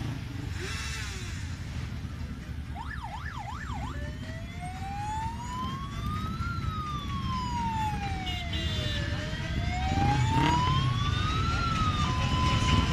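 Electronic siren: a few quick yelps about three seconds in, then a slow wail that rises and falls twice, switching near the end to steady alternating tones. Motorcycle engines run low underneath.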